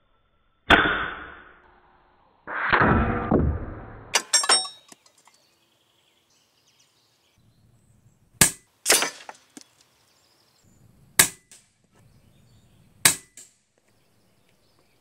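Daystate Red Wolf PCP air rifle firing a string of shots, spaced a few seconds apart, each a sharp crack, mixed with the metallic clank and ring of pellets hitting steel knock-down targets.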